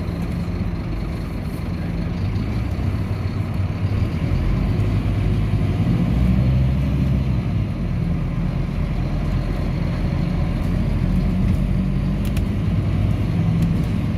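Scania K310UB city bus's diesel engine running as the bus drives along a street, heard from inside the passenger cabin with road noise. The engine note climbs and gets louder between about four and seven seconds in as the bus picks up speed, then settles, with a few faint rattles near the end.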